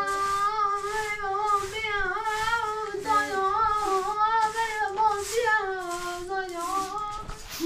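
A high voice singing a slow melody in long, wavering held notes with only brief breaks.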